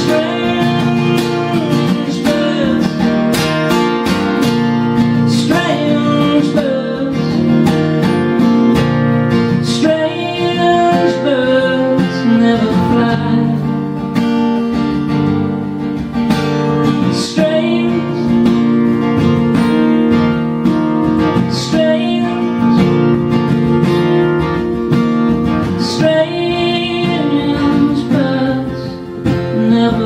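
Steel-string acoustic guitar strummed in steady chords while a man sings along, a solo acoustic song performed live.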